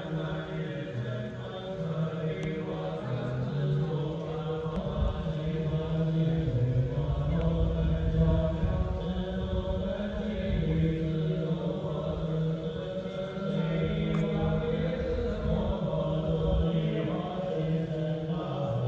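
Slow Buddhist chant in low voices with music accompaniment, held on long steady notes.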